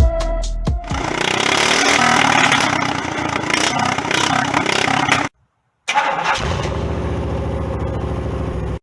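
An engine running loudly in two edited clips: a busy, loud stretch with its pitch moving, then a sudden cut to silence for about half a second, then a steady engine with an even beat that cuts off abruptly at the end. The tail of electronic music is heard in the first second.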